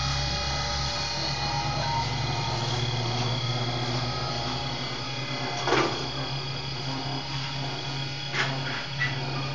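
Stepper-motor drive of a CNC hot-wire foam cutter running: a steady machine hum with several constant whining tones. Three short knocks come about halfway through and near the end, the first the loudest.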